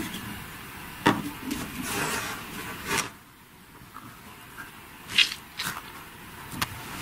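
Hands handling rubbery squishy toys on a wooden tabletop: a few short knocks and taps as the toys are picked up and set down, with a scraping rustle about two seconds in.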